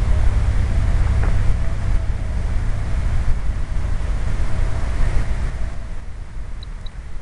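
Wind buffeting the microphone: a loud, steady low rumble, with a faint wavering whine underneath that eases off in the last second or so.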